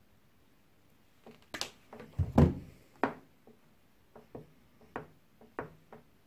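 Irregular knocks and clicks of small parts, cables and tools being handled on a workbench while wiring a relay's screw terminals. One heavier thump comes about two and a half seconds in.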